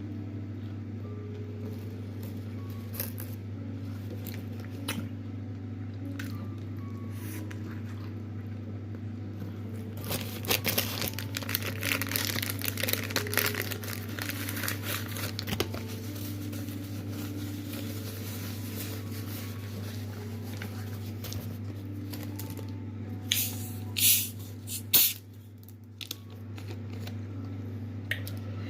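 Close-up chewing of crunchy food over a steady low hum, with a dense run of crunching in the middle and a few loud crunches a little later.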